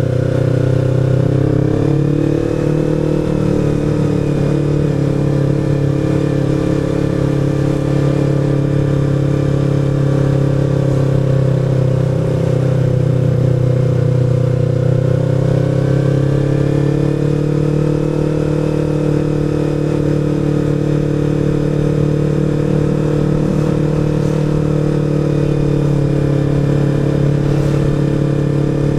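Sport motorcycle's engine running steadily while riding along, its pitch dipping and rising gently a few times with the throttle.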